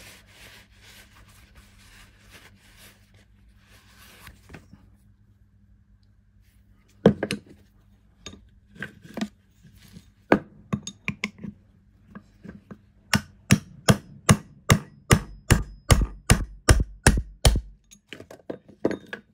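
Rag rubbing inside the steel base of a magnetic dial-gauge stand. From about seven seconds in come sharp knocks of the base against a wooden workbench, at first spaced out, then a rapid run of about three a second with heavy thumps: the seized magnet base being tapped to free its parts.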